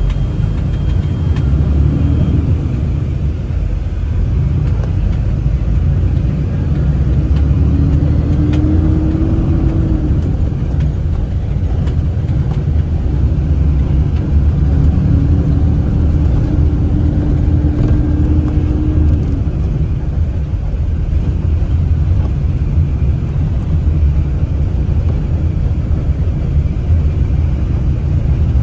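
Coach bus driving, heard from inside the passenger cabin: a steady low rumble of engine and road noise. A faint humming tone rises above it twice, once briefly and once for a few seconds.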